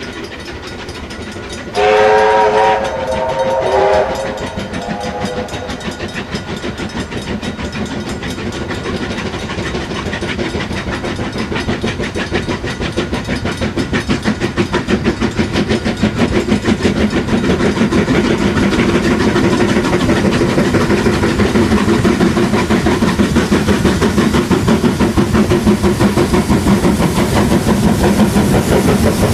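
Steam locomotive whistle sounding a chord in two blasts about two seconds in, then the locomotive's rapid, even exhaust beats over the wheels on the rails, growing steadily louder as it approaches.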